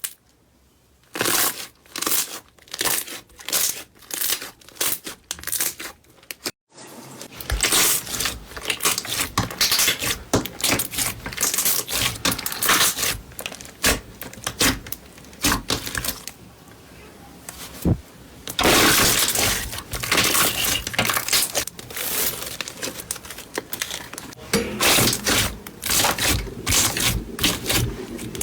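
Slime being squeezed and pressed by hand, making crackling, popping squishes. At first these come in a regular run about twice a second. After a cut a little over six seconds in, they become denser, near-continuous crackling, and separate bursts return near the end.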